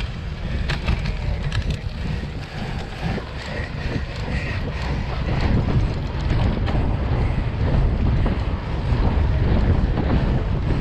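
Wind buffeting the microphone of an action camera on a cyclocross bike ridden at speed, with rushing tyre and ride noise and a few sharp clicks in the first couple of seconds; it gets louder after about halfway, on the paved stretch.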